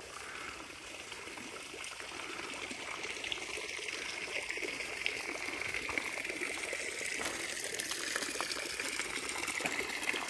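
Water running and splashing steadily from a public village fountain into a stone trough, growing gradually louder.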